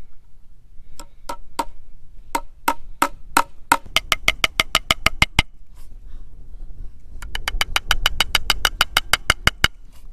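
Hammer driving fence staples into a wooden post to fasten barbed wire: a few spaced strikes, then two long runs of rapid, even strikes with a ringing tone in each.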